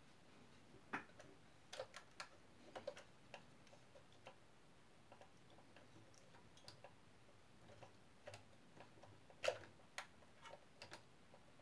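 Faint, scattered small clicks and taps of a toy soldier figure being handled and pulled out of the open cab door of a diecast model truck, with the sharpest click about nine and a half seconds in.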